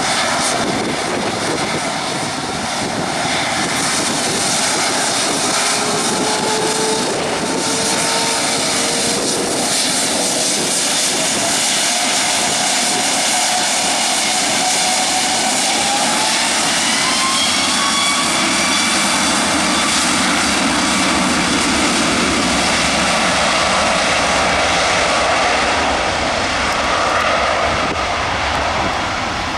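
Boeing 777-212's twin jet engines spooling up to takeoff thrust. The whine rises in pitch through the middle, then holds at a loud, steady level as the airliner rolls down the runway on its takeoff run.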